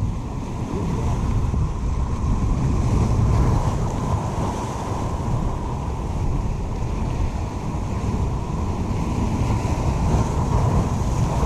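Surf breaking and washing over the rocks of a jetty, with wind rumbling on the microphone. The waves swell louder about three seconds in and again near the end.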